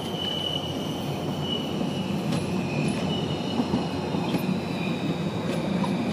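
Alstom Citadis low-floor tram rolling past, a steady rumble of wheels on rail with a thin high-pitched wheel squeal held over it as it takes a curve.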